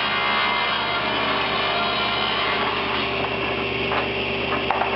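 Table saw running and ripping a board, the blade cutting through the wood as a dense steady noise over the motor's hum. About three seconds in the cutting noise thins out while the saw keeps running, and a few light knocks come near the end.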